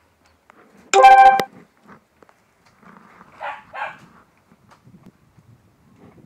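Animal calls: one loud, pitched call about half a second long about a second in, then two short calls in quick succession a couple of seconds later.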